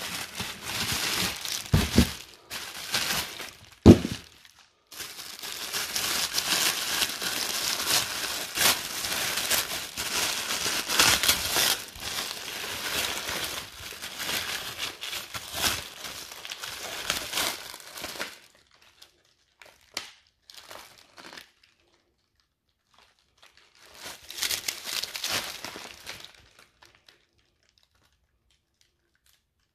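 Wrapping of a brick of China-Böller II firecrackers being handled and torn open: dense crinkling and rustling, with two sharp knocks in the first four seconds. The crinkling breaks off about eighteen seconds in and returns briefly around twenty-five seconds.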